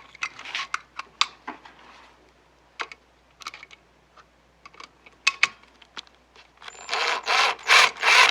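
Scattered clicks and taps of a wall receptacle and its screws being handled, then, near the end, a quick run of scratchy rasps, about three a second, as a screwdriver drives in a mounting screw.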